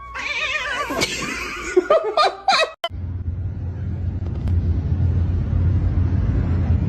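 A person laughing in wavering, broken bursts. About three seconds in it cuts off abruptly, giving way to a steady low hum with faint noise.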